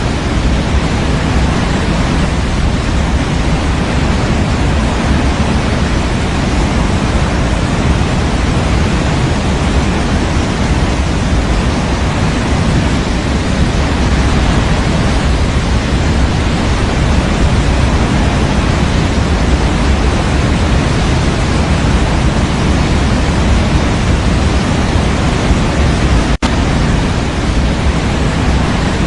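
Steady white-noise soundtrack for baby sleep: an even, unchanging hiss, heavier in the low end. It breaks off for a split second about 26 seconds in.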